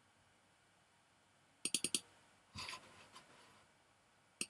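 Faint computer mouse clicks: a quick run of four a little under two seconds in and three more near the end, with a soft short noise between them; otherwise near silence.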